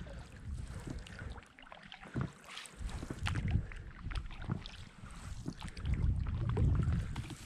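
A small rowboat moving on the water, with irregular splashes and knocks from the oars and hull, and wind rumbling on the microphone in gusts.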